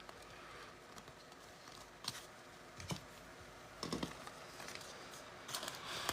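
A handful of faint, scattered clicks and taps over quiet room tone, a few more close together near the end.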